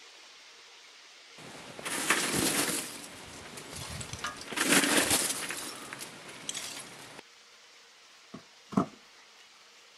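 Crackling and crunching of kindling and coal being stirred by hand in a forge fire, with two loud bursts. This stops suddenly, and two short knocks follow near the end, the second louder.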